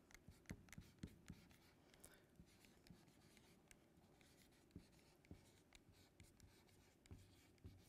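Faint scratching and tapping of a marker writing on a board, a scatter of short strokes.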